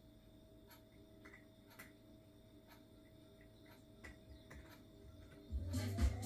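Near silence with a faint steady hum and a few faint scattered clicks; electronic dance music with a heavy beat comes back in near the end.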